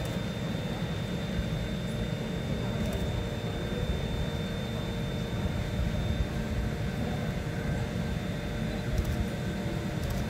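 Freight train of grain hopper wagons rolling past with a steady rumble, a few faint clicks over it.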